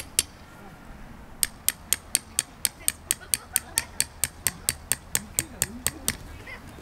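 Metal tent peg being driven into the ground with a hammer: quick, even, ringing strikes, about four or five a second. One strike at the start, then a pause of about a second, then a steady run that stops about six seconds in.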